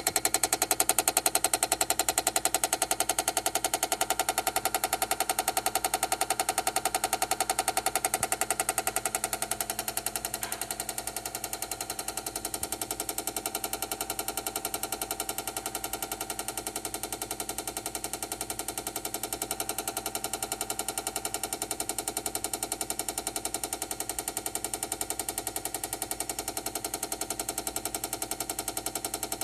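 Chamberlain garage door opener malfunctioning with a rapid, continuous machine-gun-like clicking over a steady hum, dropping slightly in level about ten seconds in. The fault lies in the opener's main logic board, which the owner cured by replacing the board.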